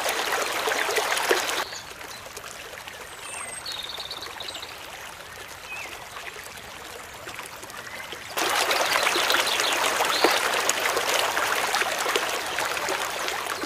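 Shallow river rapids rushing over stones. About two seconds in, the rushing water cuts to a quieter stretch with a few faint chirps, and it comes back at full strength about eight seconds in.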